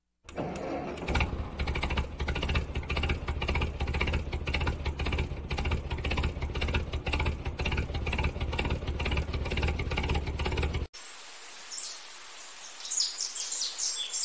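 Engine running steadily with an even, pulsing low rumble, starting just after the beginning and cutting off abruptly about eleven seconds in. Short, faint bird chirps follow near the end.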